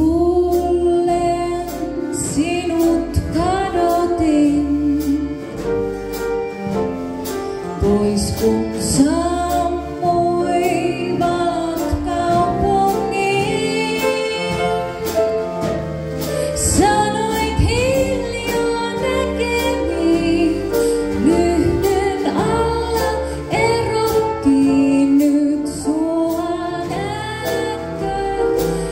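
A woman singing a melody with vibrato, backed by a live band with a steady drum beat and bass.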